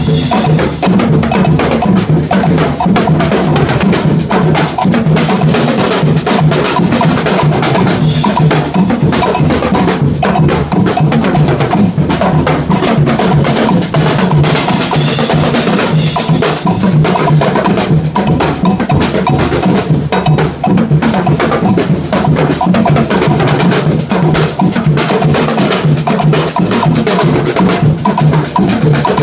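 A group of drummers playing snare drums and large standing bass drums together in a fast, continuous rhythm, with no pauses.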